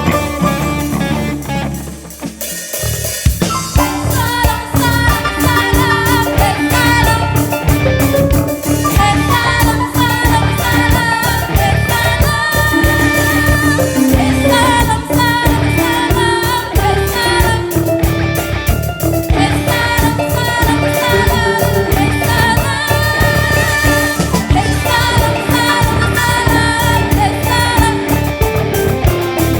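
Live ensemble music. A held tone fades out at the start. About three seconds in, the full ensemble comes in with fast, dense drumming under a melody line and singing voices.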